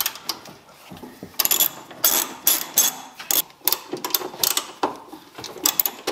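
Hand ratchet with an extension clicking in short bursts of quick clicks, about one stroke every half second to a second, as 10 mm dash bolts are backed out.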